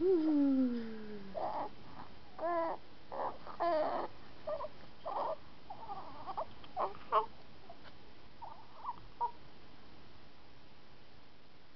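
A two-week-old baby cooing: a longer falling coo to start, then a string of short coos and squeaky sounds that stop about nine seconds in.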